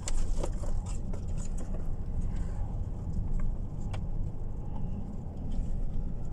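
Steady low rumble of a moving car heard from inside the cabin: engine and road noise, with a few small clicks or knocks.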